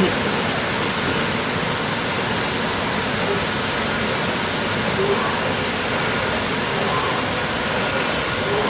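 C.R. Onsrud 381G18CD CNC router running under power: a steady, even rushing noise, with two brief high hisses about one and three seconds in.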